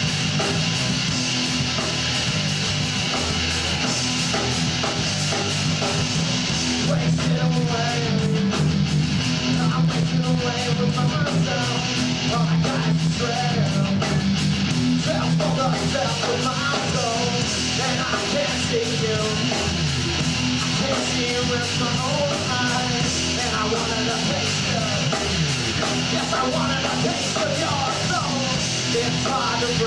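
Rock band playing live: electric guitars and drums.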